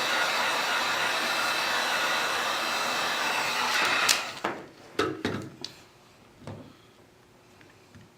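Hot-air blower running steadily, heating the phone's glass to soften the screen adhesive, then switched off with a click about four seconds in. A few light knocks and clicks follow.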